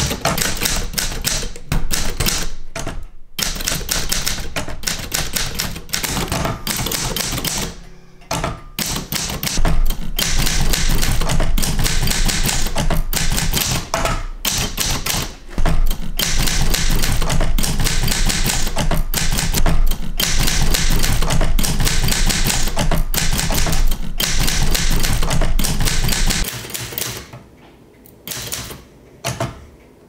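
Olympia manual typewriter being typed on: its keys strike in fast runs of sharp clacks with short pauses between them. Near the end the typing thins to a few scattered strokes.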